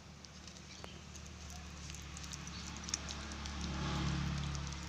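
A hand smearing thick ground masala paste onto Indian mackerel (bangude) in a steel plate: soft wet squishing with small scattered taps and clicks. Under it runs a steady low hum that swells toward the end.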